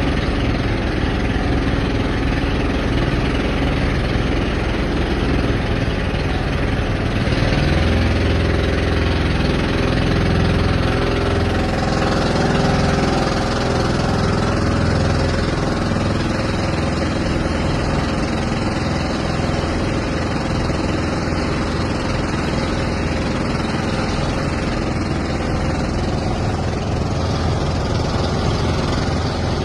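An engine running steadily throughout, its low rumble swelling for a few seconds about a third of the way in.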